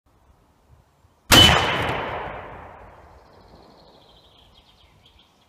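A single 7mm Remington Magnum rifle shot about a second in, fired into the ballistic gel blocks from 100 metres: one sharp report that echoes away over about two seconds. A small bird chirps near the end.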